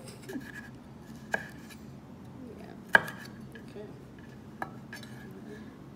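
Chef's knife knocking on a wooden cutting board while slicing a red bell pepper: three sharp knocks about a second and a half apart, the middle one loudest.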